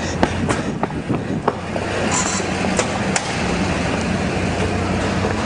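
Motor vehicle engine running steadily with street traffic noise. A few sharp clicks come in the first second and a half.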